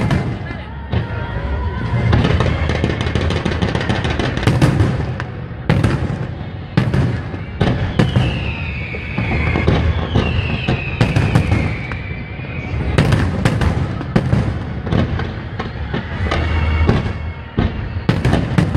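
Fireworks display: aerial shells bursting in a run of repeated sharp bangs with crackling between them. Two falling whistles come about eight and ten seconds in.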